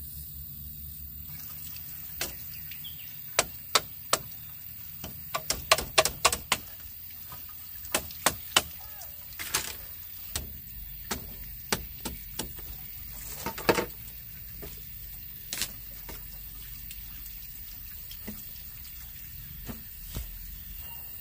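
Irregular sharp knocks and clicks, some in quick runs of several, with two brief rushing noises in the middle.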